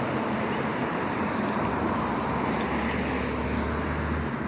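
Steady car noise: engine hum and road rumble from a car being driven, with no change in pace.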